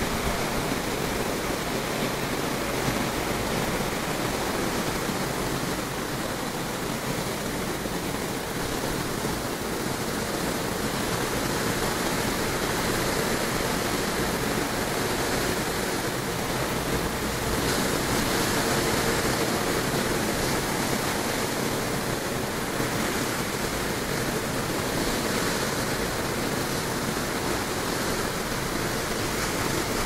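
Rough ocean surf breaking and washing up the beach: a steady rush of water noise with no pauses, swelling a little in the middle.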